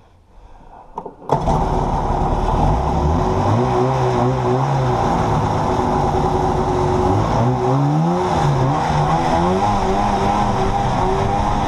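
Vintage Mercury Hurricane Mark II snowmobile's two-stroke engine comes in suddenly about a second in and runs loudly, its pitch rising and falling as it revs.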